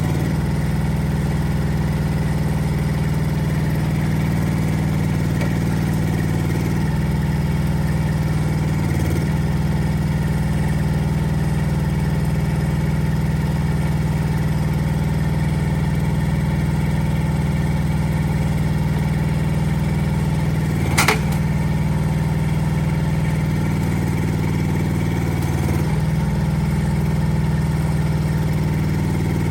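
Rippa R10 Eco mini excavator's engine running steadily, its note shifting slightly a few times. One sharp knock sounds about two-thirds of the way through.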